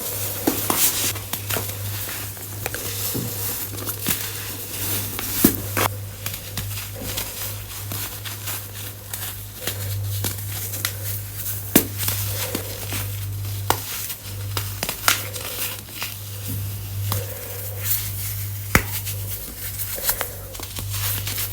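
Reformed baking soda chunks being crushed: a continuous run of irregular crunches and crackles, over a steady low hum.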